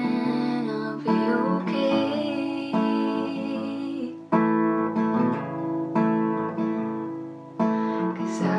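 A young woman singing to her own strummed acoustic guitar, the chords struck afresh every second or two.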